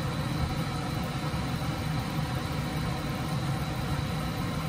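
Steady, unchanging low mechanical hum with a faint high whine above it, like a fan or motor running in the kitchen.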